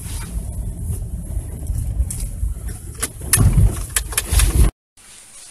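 A car in motion heard from inside the cabin: a steady low rumble, with a few sharp clicks and knocks about two to four and a half seconds in. The sound cuts off suddenly near the end.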